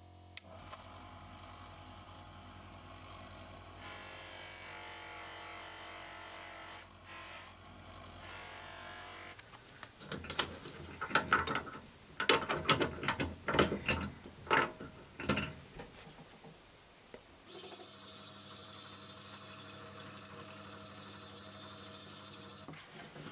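Bench grinder with a grey abrasive wheel running steadily. Then a run of loud, irregular metallic clicks and clanks as a three-stone cylinder hone is fitted into a drill press chuck. After that the drill press runs steadily with a high abrasive hiss, with the hone set in the moped's finned cylinder.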